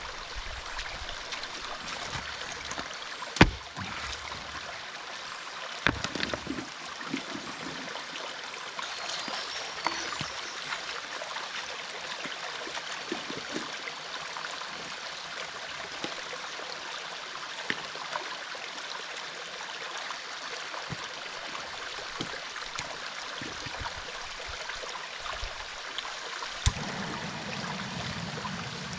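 Creek water flowing steadily, with a few sharp clicks and knocks of gear being handled. Near the end a click is followed by the steady low burn of a Jetboil camp stove being lit to boil water.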